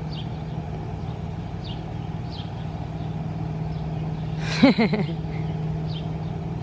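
A steady, low, even motor hum, such as an engine or machine running somewhere near the yard. About four and a half seconds in, a short voice cuts in with three or four quick rising-and-falling notes, the loudest sound here.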